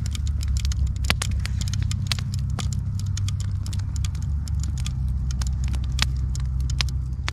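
Wood campfire in a fire pit crackling, with many sharp, irregular pops and snaps from the burning logs over a steady low rumble.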